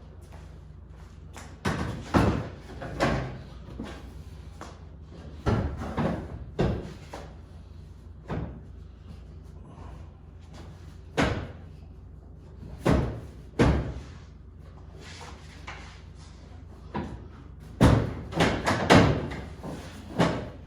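Clunks and knocks of seats being fitted and bolted into an off-road car, in small groups every few seconds with the loudest near the end. A low steady hum runs underneath.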